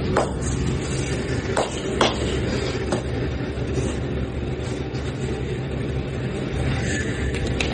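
A handful of sharp hand slaps from a barber's head massage, at irregular intervals, over a steady low rumble.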